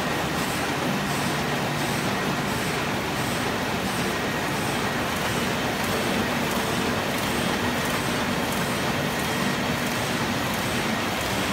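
Roland Favorit sheet-fed offset printing press running: a steady mechanical noise with a faint, regular ticking about twice a second.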